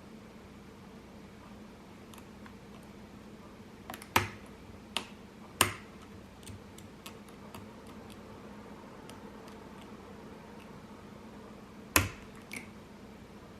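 Padlock being picked and handled: scattered faint ticks and sharp metal clicks, with three loud clicks about four to six seconds in and another near the end.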